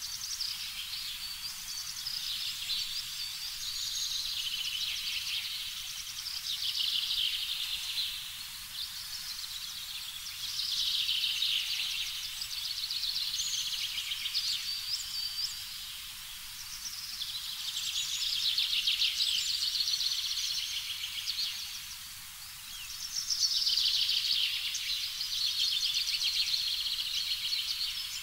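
A high-pitched, rapidly pulsing chorus of animal calls that swells and fades in waves about every five to six seconds.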